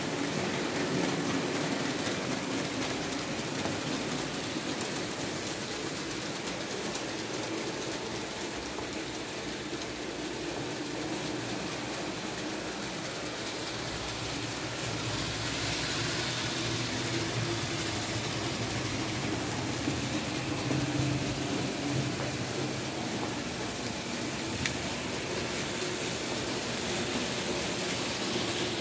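Märklin H0 model BR 23 steam locomotive running along the track with a train of wagons: a steady whirring rattle of motor and wheels on the rails, dipping a little and then growing slightly louder past the middle.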